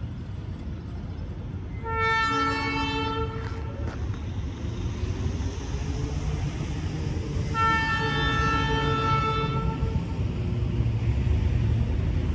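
Air horn of an EMD SW1500 switcher locomotive sounding two long blasts a few seconds apart, over a low rumble that grows louder toward the end.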